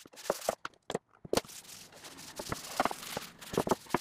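A paper towel soaked in vegetable oil rubbing over a wooden cutting board, with the paper crinkling and light knocks as the board is shifted and tilted on the stone countertop: irregular short clicks and soft rustles.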